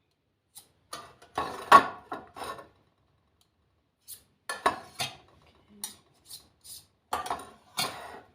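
Kitchen utensils knocking and scraping against cookware in three short bunches of clatter, consistent with a metal muffin pan being greased with butter.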